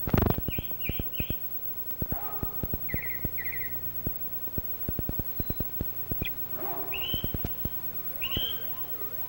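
Short bird-like chirps and quick trills, a few at a time, over a steady low hum, with irregular sharp clicks throughout; the loudest click comes right at the start.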